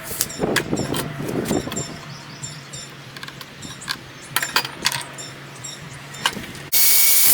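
A series of light clicks, clinks and knocks, like tools and materials being handled, then a loud rush of noise for about a second near the end.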